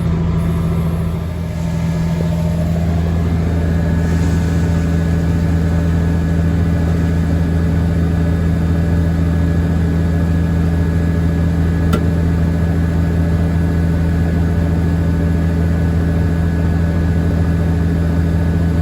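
Combine harvester engine and machinery running with a steady, unchanging low drone, heard from inside the cab during corn harvest.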